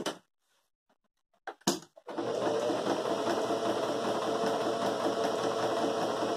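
Electric sewing machine stitching steadily, starting about two seconds in after a couple of brief knocks, as it runs a close zigzag stitch around the edge of an appliquéd fabric flower.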